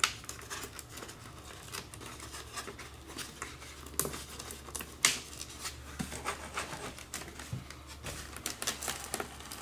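Handling noises of a foam RC airplane being put together: the tail section rubbed and pushed onto the fuselage with its wires fed through, giving scattered small scratches and rustles, with two sharper plastic clicks about four and five seconds in.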